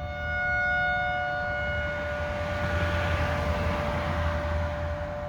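Outdoor tornado warning siren sounding a steady, unwavering tone, over a low rumble. A broad rushing noise swells and fades around the middle.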